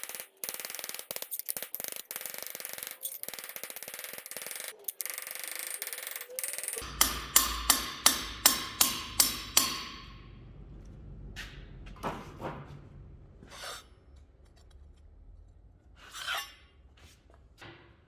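Steel being worked with hand tools. A dense crackling, scraping noise runs for about seven seconds, then it stops and about ten sharp metal hammer blows follow at roughly three a second. A few lighter knocks and clanks come near the end.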